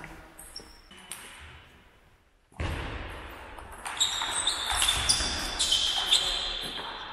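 Table tennis rally: the ball clicks sharply off the bats and the table, about two hits a second, starting about four seconds in, each hit ringing briefly in the hall.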